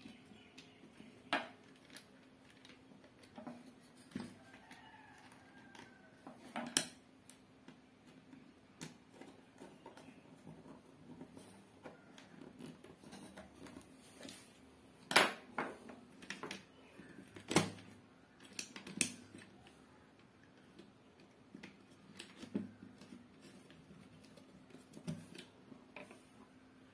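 Scattered small clicks and metallic taps of a screwdriver and wire being worked at the screw terminals of an opened plastic extension box, with a few louder clicks a little past the middle.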